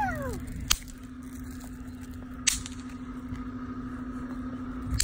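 Pop-It snap pops (bang snaps) thrown onto asphalt, cracking sharply twice about two seconds apart, with a third crack at the very end. A steady low hum runs underneath.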